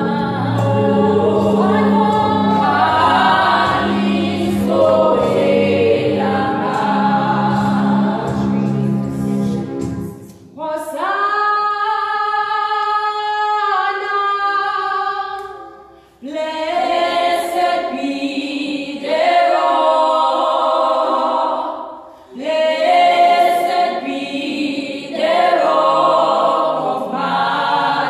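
A small worship choir singing a gospel song in harmony, in long held phrases with short breaks for breath about ten, sixteen and twenty-two seconds in.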